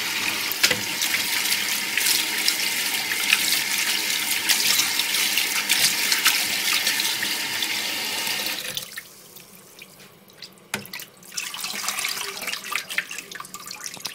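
Kitchen tap running into a bowl of chicken wings in a stainless steel sink, splashing steadily as the wings are rinsed. The flow stops about two-thirds of the way through, leaving drips and small splashes as the bowl is handled.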